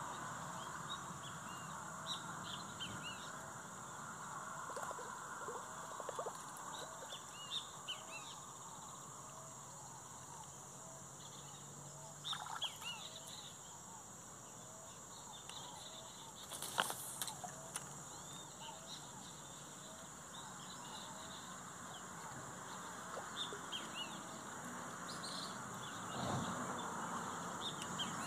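Birds calling in the open: scattered short chirps throughout, and a short call repeated steadily for the first half. One sharp click about seventeen seconds in.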